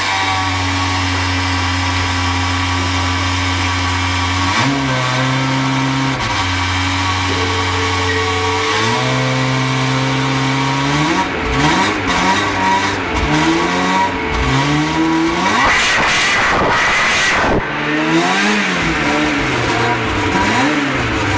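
Ferrari F355's 3.5-litre V8 revved with repeated throttle blips, the pitch rising and falling with each one, from about halfway through. Before that come steady held tones that jump between pitches in sudden steps.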